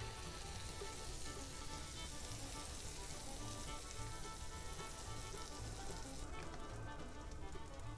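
Butter and pancake batter sizzling on a hot Blackstone flat-top griddle at about 375°F, a steady frying hiss that thins out about six seconds in.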